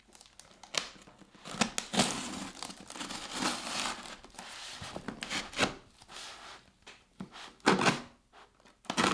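Packaging being cut and torn open with a blade: irregular tearing and plastic crinkling, a long stretch of tearing about one and a half seconds in, then shorter rips and rustles, with one sharp loud rip near the end.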